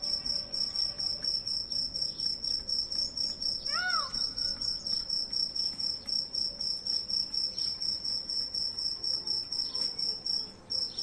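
Cricket chirping steadily in a high, pulsing trill of about four chirps a second, breaking off briefly near the end. A single short rising-and-falling call sounds once about four seconds in.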